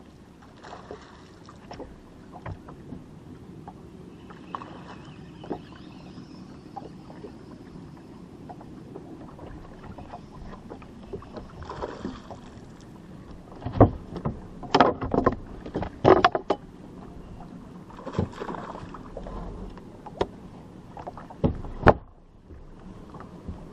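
Water lapping against a fiberglass bass boat's hull, with a cluster of sharp knocks about two-thirds of the way through and two more near the end.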